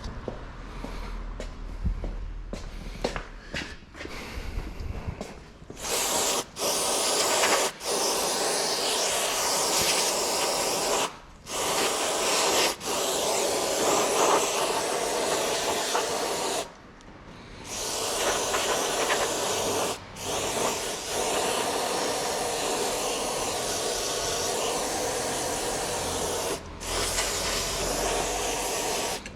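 Aerosol parts cleaner sprayed in long hissing bursts with brief pauses between them, starting about six seconds in after a few handling clicks and knocks. It is brake parts being degreased before the front disc rotors are fitted.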